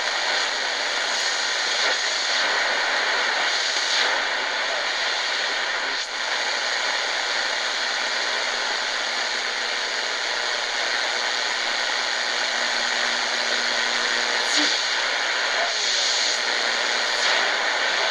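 Steady static hiss from the Tecsun GR-138 portable radio's speaker as its dial is tuned slowly between stations. A faint low steady tone comes in for several seconds midway.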